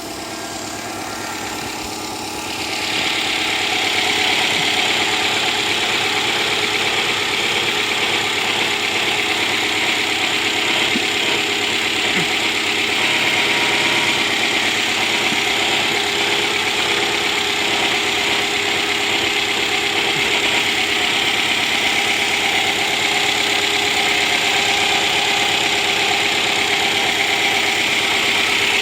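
Subaru Exiga's EJ20 turbo flat-four idling, with a loud, higher-pitched abnormal noise that sets in about two to three seconds in and then holds steady. It is a cold-engine noise tied to the intake manifold: it stops when the manifold is pressed down and appears when it is pulled forward.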